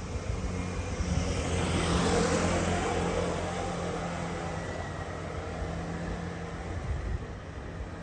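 Motor scooter passing close by, its engine swelling to a peak about two seconds in and then fading as it moves off ahead.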